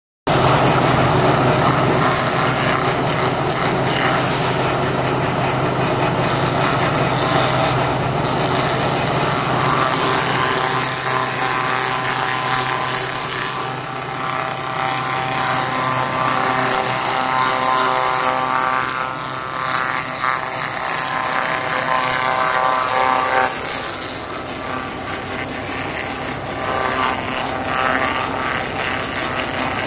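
Wood veneer crusher running under load: a steady machine drone mixed with the rough noise of veneer strips being chewed into sawdust as they are fed in. A higher whine joins about a third of the way in and cuts off suddenly about three-quarters of the way through.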